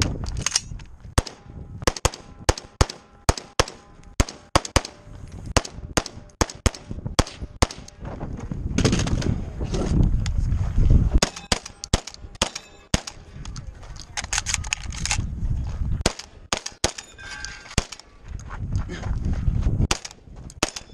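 Rapid gunfire from a rifle and a shotgun at close range, dozens of sharp shots often about two a second, with steel plate targets ringing when hit. A loud low rumble comes in twice, about nine to eleven seconds in and again near the end.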